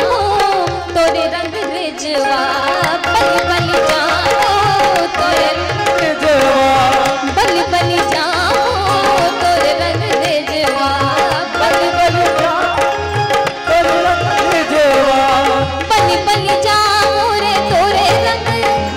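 Live Indian devotional music: a woman's singing, with gliding melodic lines, over a harmonium's steady held notes and a tabla keeping a steady rhythm.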